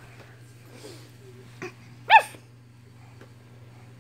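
A dog gives a single short, high-pitched bark, like a yip, about two seconds in.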